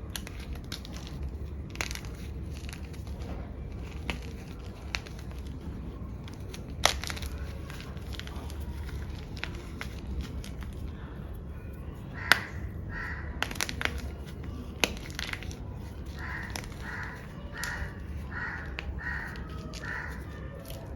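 Black-dyed gym chalk block being crushed: scattered crisp crunches and crackles, one sharper crack about seven seconds in and another about twelve seconds in. In the second half a run of about six short calls sounds in the background, each about half a second apart.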